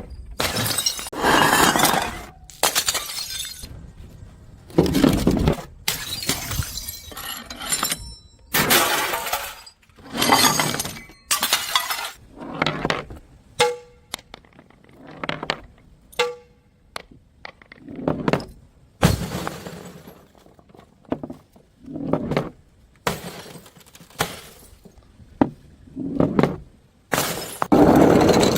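Glass bottles smashing one after another, a long series of separate crashes roughly every second or two, each with shattering glass scattering. Around the middle there are a couple of brief ringing clinks of glass.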